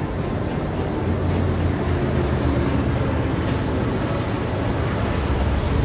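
A steady low rumble with a hiss over it, growing slightly louder.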